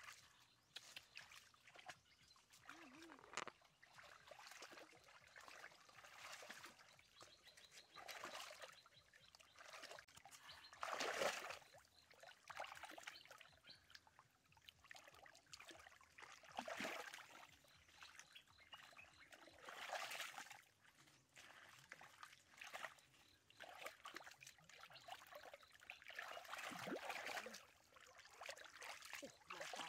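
Faint trickling and sloshing of shallow stream water, with irregular small splashes as hands grope through the muddy water; the loudest splash comes about a third of the way in.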